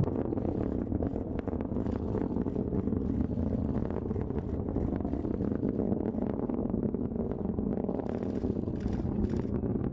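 Falcon 9 rocket engines heard from the ground during ascent: a steady low rumble with a rough crackle running through it.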